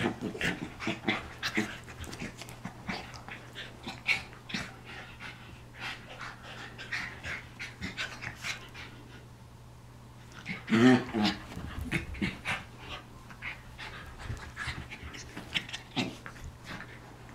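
A pomchi and a wire-haired dachshund play-fighting: quick panting breaths throughout, with one louder growl-like vocal burst about eleven seconds in.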